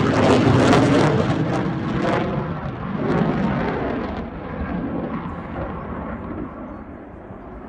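Eurofighter Typhoon's twin Eurojet EJ200 turbofans, loud and crackling for the first two seconds, then fading and growing duller as the jet draws away.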